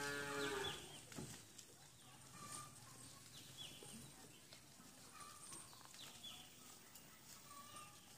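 A goat's long, steady bleat fades out within the first second, followed by quiet with a few faint, short chirping calls.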